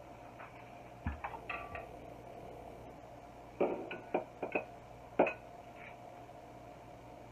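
Ceramic dinner plate and bowl set down on a countertop: a dull thump about a second in, then a run of sharp clinks and knocks in the middle, the last one a little after five seconds. A faint steady hum lies underneath.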